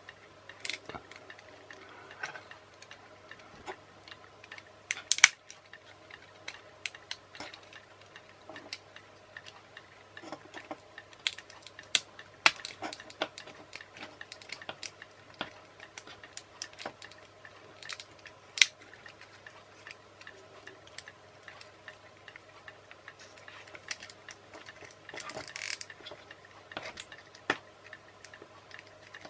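Small plastic parts of an RC toy car chassis being handled and clipped back together by hand: irregular sharp clicks and taps, the loudest about five seconds in, with a short rustle near the end.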